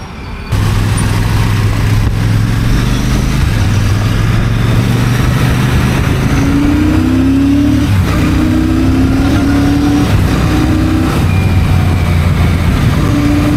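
Royal Enfield Shotgun 650's parallel-twin engine and exhaust under way on a ride. It pulls up through the gears, the engine note rising in a few short sweeps from about six seconds in and once more near the end.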